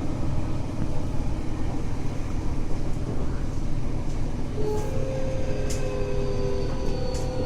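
Tokyo Metro 03 series train running, heard from inside the car: a steady rumble of wheels on rail. About halfway through, a steady whine of several tones sets in, with a couple of faint high clicks.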